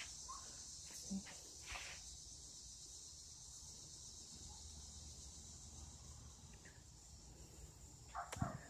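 Faint, steady high-pitched chirring of insects, with a few soft knocks about a second in and again near the end.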